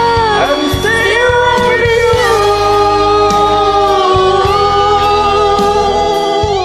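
Karaoke singing over a music backing track. The voice slides up early, then holds one long note from about two seconds in until just before the end.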